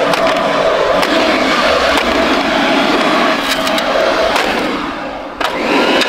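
Electrolux Trivac 1450 stick vacuum running while its plastic body is slammed against the ground: a steady motor whine with sharp knocks and plastic cracking about every second. Near the end the motor sound sags, then one hard hit.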